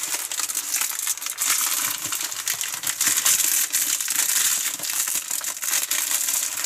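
Thin black plastic wrapping crinkling and rustling as hands grip and turn it, with a continuous stream of small crackles.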